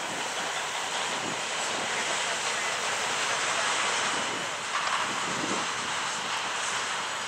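Steady rushing roll of a long intermodal freight train's container and trailer cars passing on steel rails.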